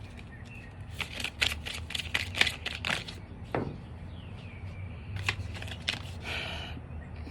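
Tarot cards being shuffled and handled: a quick run of crisp card snaps about a second in, then a few more flicks and a short rustle near the end.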